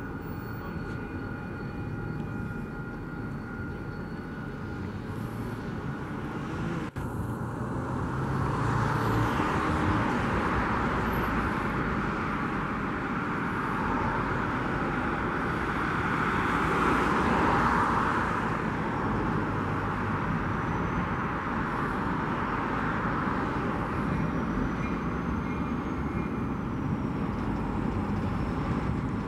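Idling-to-low-throttle rumble of an EMD GP40-2 diesel locomotive's turbocharged engine as it moves slowly, mixed with road traffic passing; a rushing swell builds after a few seconds, is loudest around two thirds of the way through, then eases.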